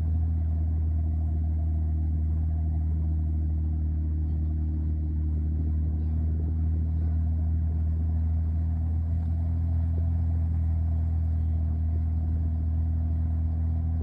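Off-road vehicle's engine running at a steady speed: a constant low hum with no revving.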